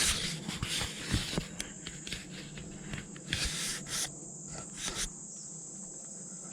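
Steady high-pitched insect chorus, with irregular rustling and scuffing of footsteps through grass and brush for the first five seconds.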